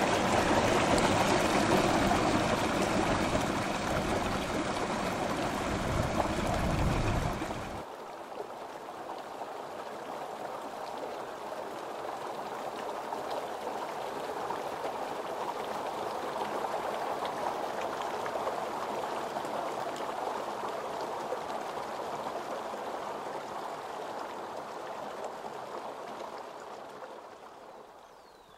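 Small stream of water running over rock with a steady rushing sound. About eight seconds in it drops suddenly to a softer, thinner trickle, which fades near the end.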